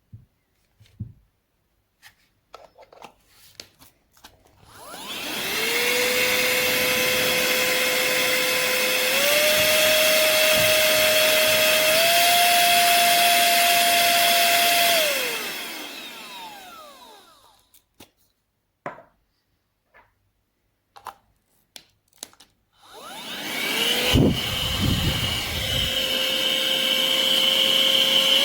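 Cordless handheld vacuum cleaner's small motor switched on with a whine, stepping up in pitch twice as it is switched to higher speeds, then switched off and winding down. Button clicks and handling knocks come before and after, and near the end the motor starts again and steps up once more.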